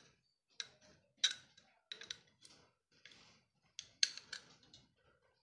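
Scattered light metallic clicks and taps, about ten at uneven intervals, as a screwdriver works against a small bolt in the riveted metal bracket of a repaired gas-stove burner tube.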